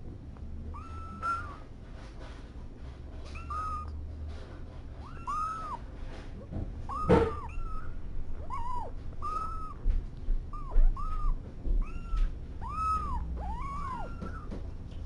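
Very young kittens, their eyes barely open, mewing over and over: short high cries that rise and fall, about one a second, with a louder cry about seven seconds in.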